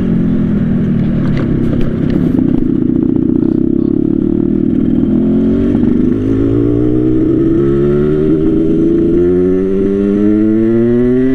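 Yamaha RX-King two-stroke single-cylinder motorcycle being ridden, its exhaust running rough and uneven at first, then climbing steadily in pitch over the second half as it pulls through the gear. The engine is tuned rich for the raspy 'ngorok' exhaust note.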